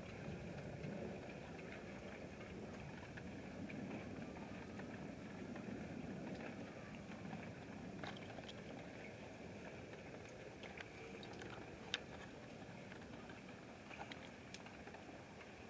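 Faint, steady outdoor night noise with a low rumble that swells and fades in the first half, broken by a few sharp clicks, the loudest about twelve seconds in.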